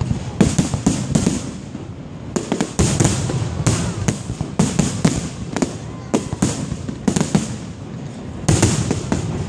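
Aerial fireworks bursting: many sharp bangs in quick, irregular succession, overlapping with crackle and the rumble of the barrage.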